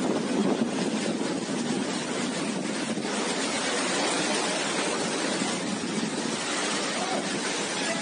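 Steady rushing noise of a cyclone storm, heavy wind and rain, with no single strikes or changes.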